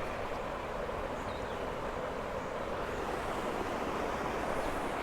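Stream water running steadily, an even rushing noise.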